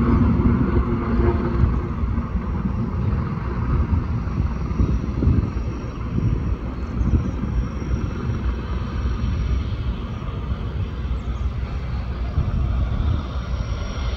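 Steady low engine rumble carrying across the water, with a float plane's propeller engine growing louder and higher near the end as it starts its takeoff run.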